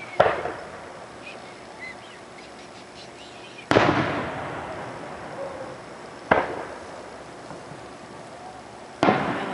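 Aerial firework shells bursting: four booms a few seconds apart, each sudden and trailing away in a fading echo.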